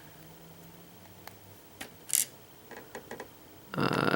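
Small metal clicks and ticks of a pin-tumbler lock's parts being handled as it is taken apart, ending with a louder rattling scrape lasting about a second near the end.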